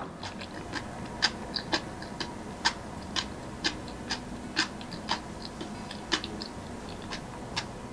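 Light, regular ticking, about two ticks a second with some ticks louder than others, over a low steady hum.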